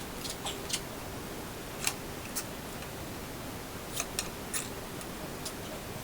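Light, scattered clicks and taps of small parts and hand tools being handled, about ten over six seconds, over a steady hiss.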